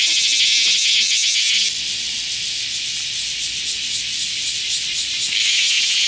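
Cicadas buzzing: a loud, dense, high-pitched drone. It drops in level a little under two seconds in and swells back near the end.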